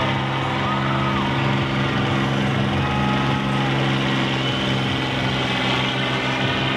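Several combine harvester engines running together in a steady, even drone, with no crashes or impacts.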